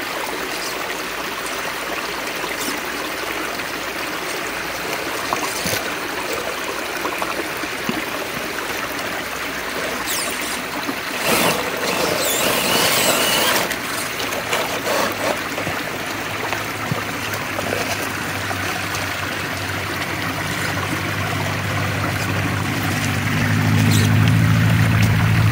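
Shallow creek trickling steadily over rocks, with a brief louder rush about halfway through. In the last several seconds a low hum from the RC crawler's electric motor and gearing rises as the truck climbs over the logs.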